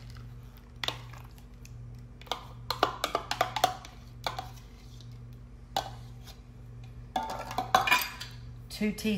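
A serving spoon tapping and scraping against a measuring cup and a plastic mixing bowl as mayonnaise is spooned in. The result is a series of irregular clinks and knocks that bunch together a few times.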